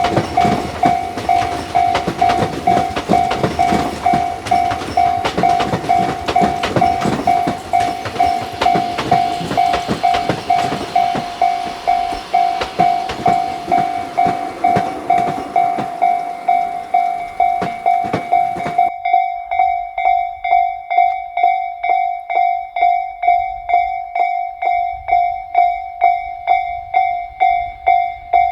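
Railway level-crossing alarm on the Tobu Isesaki Line, an electronic bell ringing steadily about twice a second. For the first two-thirds a passing Tobu train's wheels clatter over the rails beneath it; then the train noise stops abruptly and the bell rings on alone.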